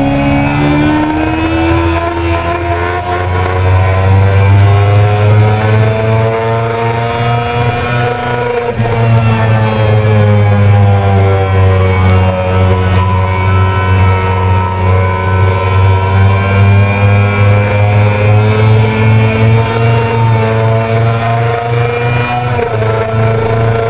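Yamaha R6's inline-four engine running hard on track. Its pitch climbs for several seconds, falls away about a third of the way in, then climbs again as the rider accelerates and slows through the corners.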